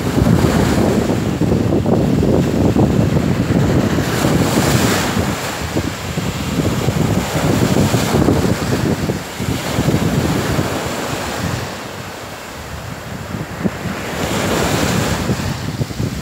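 Small sea waves breaking and washing up a sandy beach, with wind buffeting the microphone. The surf swells up loudest a few seconds in, again about halfway, and once more near the end.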